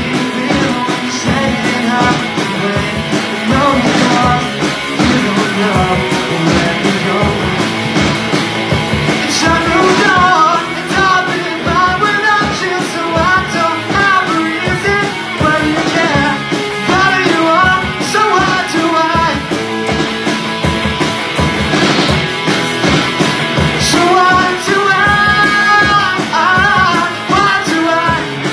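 Rock band playing a song with a singer over drums, guitar and bass; the vocal line stands out most from about a third of the way in and again near the end.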